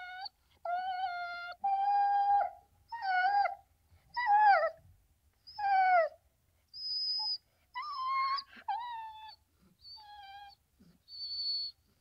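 A dog giving a series of high-pitched yelping whines, about one a second, each short call mostly holding its pitch, with a couple sliding downward in the middle.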